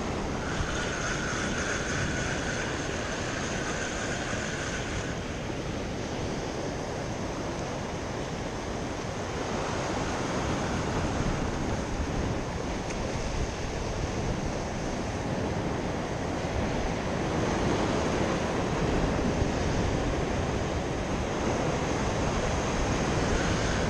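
Ocean surf breaking and washing over rocky shoreline, a steady rush, with wind buffeting the microphone. A faint steady high whine sits over it for the first few seconds.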